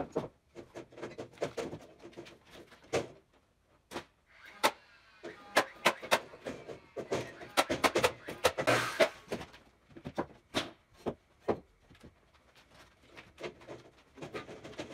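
Pneumatic framing nailers driving nails into a wooden wall frame: sharp shots, some single and some in quick runs, with short pauses between.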